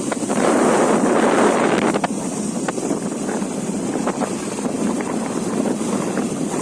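Wind rushing and buffeting over the microphone of a motorcycle being ridden, with the bike's running noise underneath. The buffeting swells loudest for a couple of seconds near the start.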